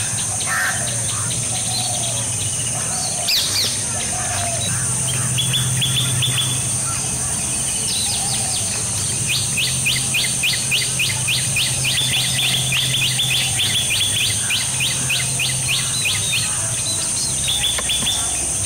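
Green bee-eater calling: high, rapid chirps in short runs, with a long even run of about four notes a second in the middle. A steady high insect drone runs underneath.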